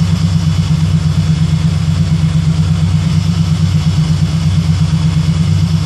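Supercharged 4.6 L DOHC Terminator V8 in a Fox-body Mustang idling steadily with an even pulse, run up to temperature while its cooling system is burped of trapped air.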